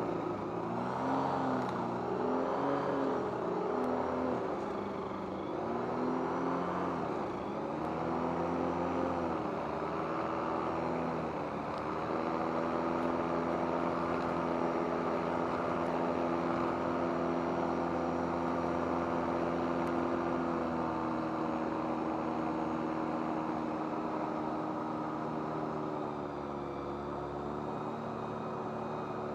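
Rotax 912UL flat-four aircraft engine and propeller running. Its pitch rises and falls unevenly several times over the first dozen seconds, then settles to a steady run with a couple of slight dips.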